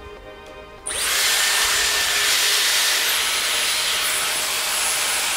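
Dyson Airwrap hair styler with its flat smoothing brush attachment switched on about a second in, then blowing a steady loud rush of air with a faint high whine.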